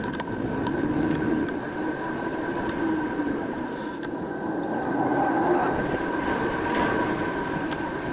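A vehicle running steadily: a low rumble with a constant high whine and a few sharp clicks.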